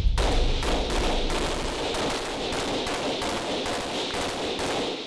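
Rapid gunfire from a fully automatic firearm: a long string of shots fired in quick succession that stops near the end.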